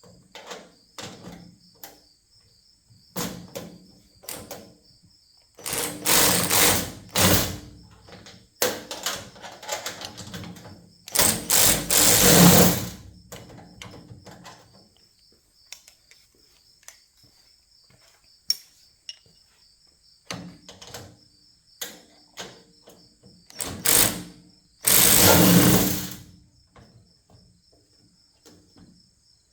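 Caster bolts on a rolling tool cart being tightened down: several short bursts of tool noise, the longest about two seconds, with scattered clicks and knocks between.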